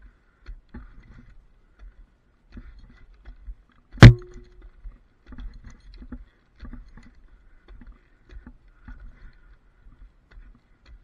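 A lineman climbing a wooden utility pole on climbers and a pole strap: gaffs biting into the wood and the strap and its hardware knocking against the pole in scattered thuds and scuffs. About four seconds in comes one loud sharp knock that rings briefly.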